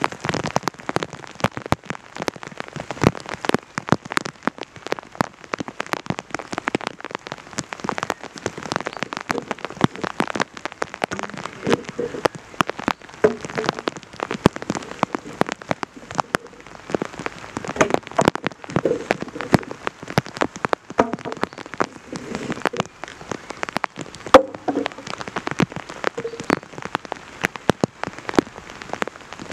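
Steady rain, with many sharp, separate drops striking loudly close to the microphone.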